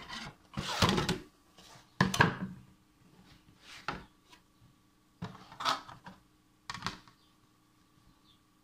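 A printed card being handled on a desktop, laid down, turned over and smoothed by hand: a run of rustles, scrapes and light taps, loudest in the first two seconds, then dying away.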